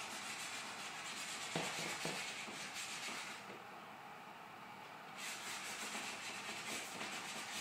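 Charcoal stick scratching and rubbing across drawing paper in quick repeated strokes as a dark area is built up. The strokes pause for about two seconds midway, then start again.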